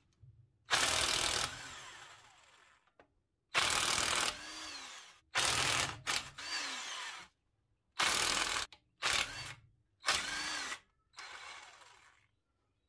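Cordless impact wrench backing out flywheel bolts from the crankshaft flange of a 1948 Ford F5 engine. It comes in about eight short bursts with pauses between them, and several bursts trail off in a falling whine as the tool spins down.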